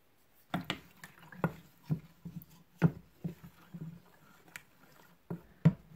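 Wooden spoon stirring yeast dissolved in warm water in a plastic bowl: irregular knocks against the bowl, about two a second, with sloshing liquid.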